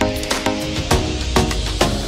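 Background music with a steady percussive beat, about two strikes a second, over sustained pitched tones.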